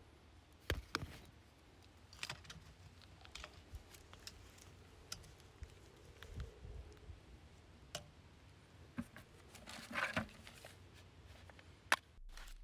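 Faint scattered clicks, taps and rustling of gloved hands working a caulk gun and pressing a screened varmint guard cap onto a PVC vent pipe, with a few sharper clicks about a second in and near the end.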